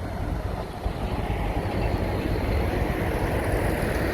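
Heavy diesel earthmoving machinery running, a steady dense engine noise that grows a little louder about a second in.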